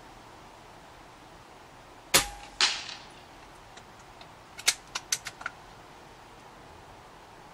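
A .22 Daystate Huntsman Regal pre-charged pneumatic air rifle firing once, a short sharp crack about two seconds in, with a second sharp crack about half a second after it. A couple of seconds later comes a quick run of about five metallic clicks as the bolt is cycled to chamber the next pellet from the magazine.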